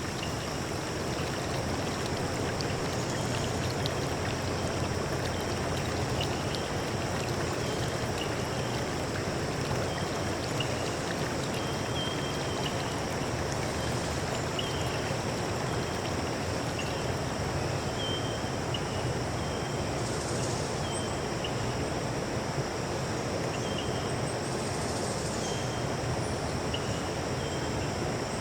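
Steady rush of flowing water from a stream or small waterfall, with short high chirps recurring about every second over it.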